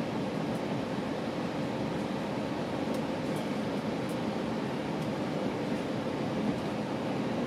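Steady rumble and hiss of a GO Transit bilevel commuter coach running along the track, heard from inside the car, with a few faint high ticks now and then.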